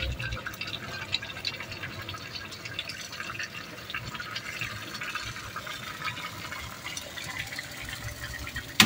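Diced squash stewing in a steel pot, a steady wet bubbling and crackling. Right at the end there is a sharp clatter of a utensil against the pot.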